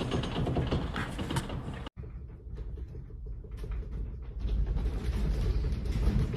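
Objects and fittings rattling and creaking as a building shakes in the magnitude 5.8 earthquake. After a sudden cut, a deep low rumble swells up about four and a half seconds in.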